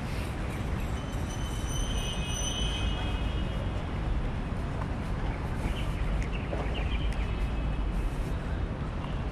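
Steady city outdoor background noise with a heavy low rumble. A brief thin high squeal or chirp comes about two seconds in.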